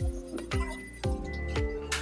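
Background music with a steady beat of about two thumps a second under held notes.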